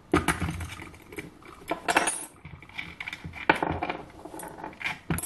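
Small metal parts clinking and knocking as a disc arbor is taken out of an electric drill's chuck and set down with a spanner on the workbench: a handful of sharp, separate clinks with handling noise between.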